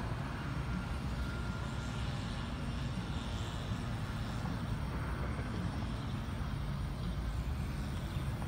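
Steady low rumble of distant road traffic, with no distinct events.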